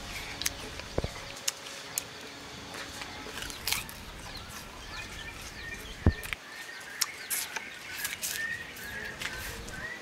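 Irregular sharp cracks and crunches of raw sugarcane stalk being bitten, its fibrous rind torn away with the teeth and chewed. Faint chirping runs in the background from about halfway through.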